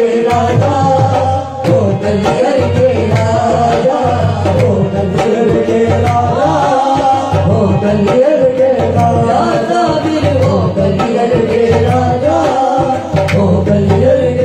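Qawwali: a male lead singer sings a wavering, ornamented melody over harmonium and a dholak drum beating steadily, with backing singers.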